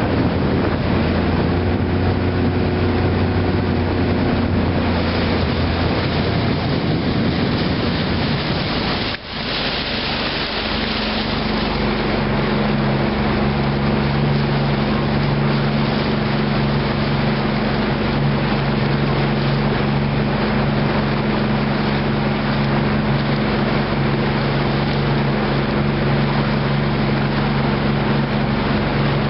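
Motorboat engine running steadily as the boat cruises, over a constant rushing noise. About nine seconds in, the sound dips briefly, and the engine note then settles at a different steady pitch.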